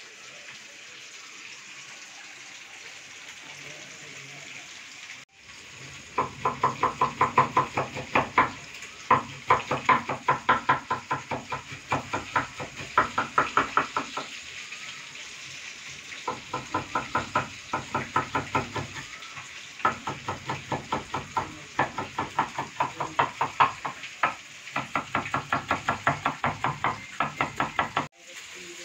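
Kitchen knife chopping ivy gourds on a wooden cutting board: rapid, regular knocks of the blade striking the board, about five a second, in runs with short pauses. The chopping starts about six seconds in, after a few seconds of low steady background.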